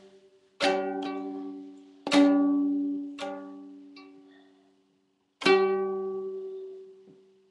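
Small ukulele strummed unevenly by a toddler: a handful of single strums a second or two apart, each chord left to ring and fade out.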